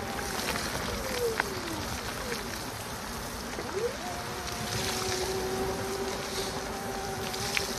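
E-bike motor whirring: its whine falls in pitch over the first two seconds, rises sharply just before the middle, then holds steady. It sits over a steady wet hiss of rain and tyres on the soaked path, with a few sharp ticks.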